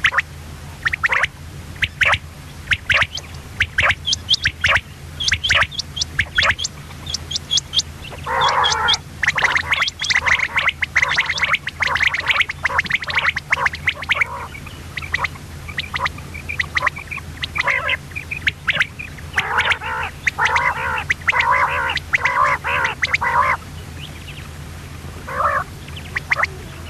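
Common quail calling: a string of short, sharp chirps, then two bouts of rapid, harsh, chattering calls, the first about eight seconds in and the second about twenty seconds in. A steady low hum runs underneath.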